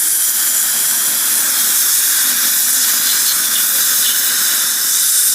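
Dental air or suction equipment giving a loud, steady hiss at the patient's mouth, cutting off sharply after about six seconds.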